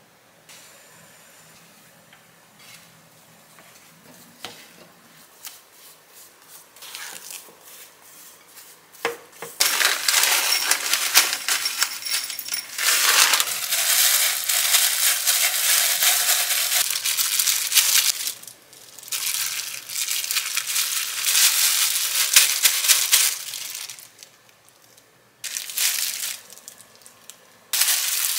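Thin plastic disposable gloves crinkling loudly as gloved hands knead and shape mashed-potato dough, in long stretches with short breaks between, after a quieter start.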